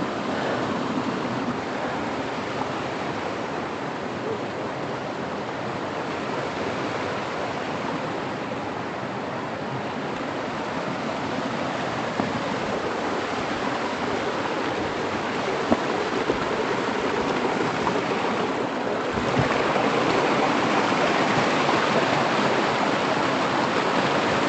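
Waterfall water rushing in a steady, even wash of noise that grows louder about three-quarters of the way through.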